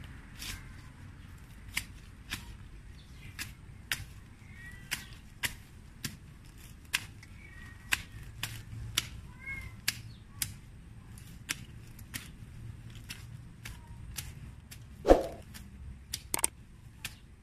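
Sharp clicks and snips about once or twice a second as grass and weeds are cut and pulled at the roots with a small hand tool, with faint bird chirps in between and one louder knock about fifteen seconds in.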